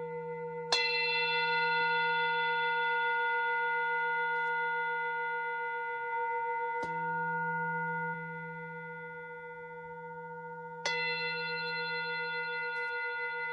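Sound bowls struck and left ringing, several long overlapping tones from a low hum up to bright high partials. A sharp strike comes under a second in, a softer one about seven seconds in and another sharp one near eleven seconds, each renewing the ring.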